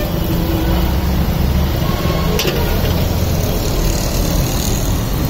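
Steady low roar of a commercial gas wok burner firing under a carbon-steel wok, with one short knock about two and a half seconds in.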